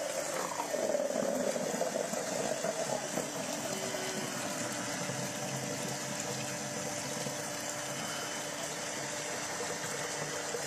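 Tap water pouring into a plastic bucket over the steady hum of a household electric water pump.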